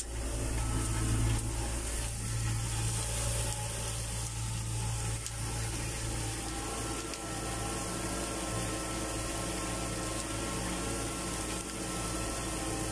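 Fendt tractor engine running steadily under load, heard from inside the cab, while it pulls a disc harrow through stubble. A thin, steady high whine joins the engine hum about halfway through.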